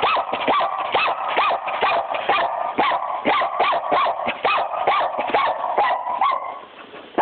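Puppy barking rapidly and repeatedly, about four short barks a second, stopping about six seconds in.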